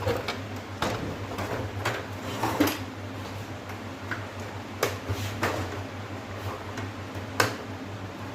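Irregular clicks and knocks of plastic and metal TV parts being handled and unclipped during disassembly of an LED TV, about seven in all, over a steady low hum.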